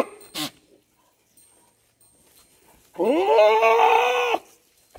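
Totapari goat bleating once: a single call about a second and a half long that rises in pitch at the start and then holds steady.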